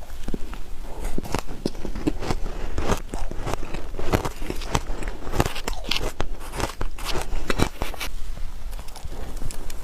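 Soft shaved ice being bitten and chewed close to the microphone: many quick, irregular crunches.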